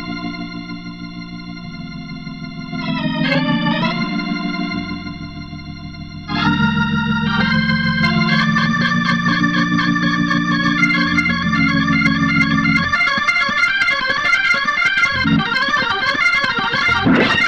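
Background organ music: held chords at first, then a busier passage of quick notes from about six seconds in.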